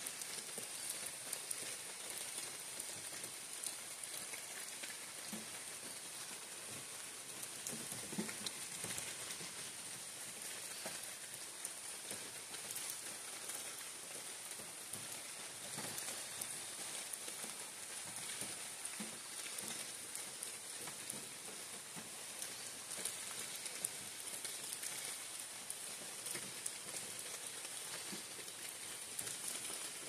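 Steady rain falling on the leaves of a forest canopy, with many separate drops ticking close by.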